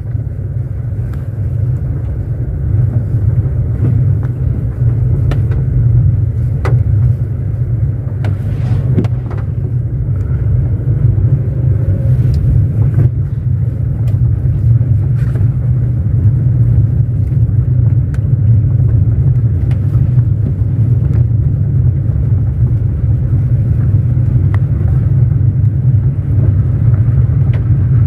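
Car driving: a steady low rumble of engine and tyre noise, with a few scattered knocks and rattles from the rough, potholed dirt road.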